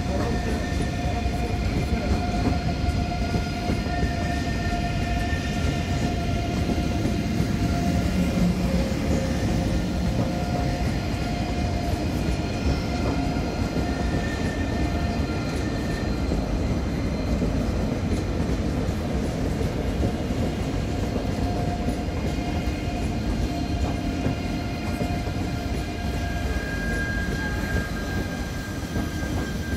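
Deutsche Bahn ICE electric high-speed train rolling past, a steady rumble of wheels on rail with several thin whining tones held over it that fade in and out.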